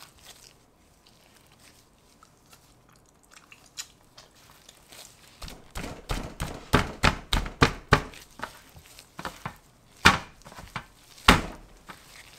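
Sticky sweet-pumpkin glutinous rice dough for injeolmi being squished, pressed and slapped by gloved hands on a tray. Quiet squishing at first, then a quick run of wet slaps a little before halfway, and two louder single slaps near the end.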